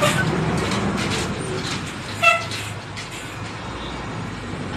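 Steady street and traffic noise, with one short, high-pitched beep just over two seconds in.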